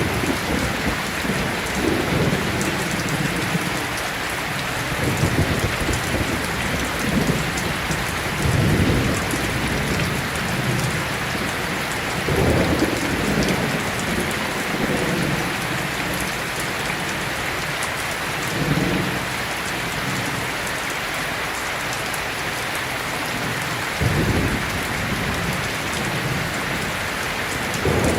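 Steady rain falling, with low rumbles of thunder swelling and fading several times.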